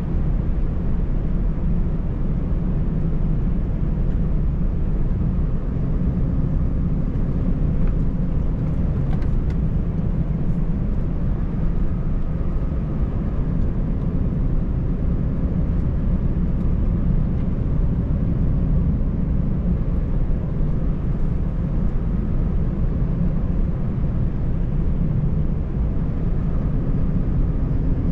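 Scania 590S truck's 13-litre inline-six diesel cruising, heard from inside the cab: a steady low drone of engine and road noise.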